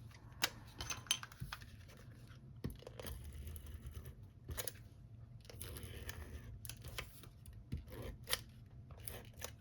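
Cardstock being handled and pressed down on a work table: scattered light taps and clicks, with a few short stretches of paper rustling.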